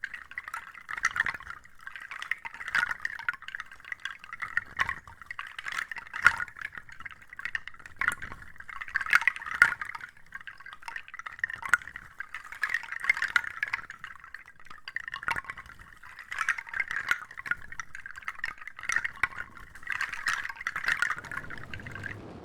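Wet, crackling ASMR trigger sounds with many small sharp clicks, swelling and easing off about every second or two.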